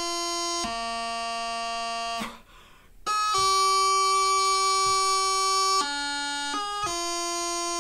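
Bagpipe practice chanter playing a slow tune in long held notes, with short grace notes flicked in between them. The sound breaks off for under a second about two and a half seconds in while the player takes a breath.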